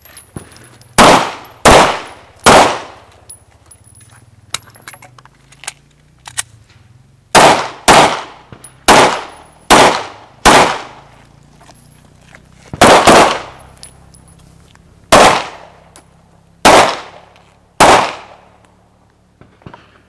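Semi-automatic pistol shots, about a dozen sharp cracks each with an echoing tail, fired in short strings with pauses between: a shooter working through a course of fire on pistol targets.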